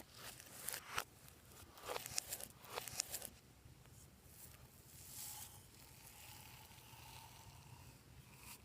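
Soft crackling and rustling of a plastic piping bag being handled, a few short crinkles in the first three seconds, then only faint handling noise.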